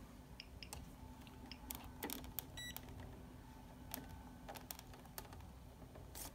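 Faint clicks of buttons being pressed and the clamp meter being handled on a bench of test gear, with one short electronic beep about two and a half seconds in.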